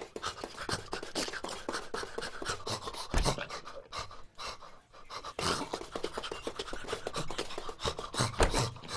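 Cartoon cat's panting and huffing: a run of rapid, short breaths voiced as a sound effect, with a brief pause about halfway through.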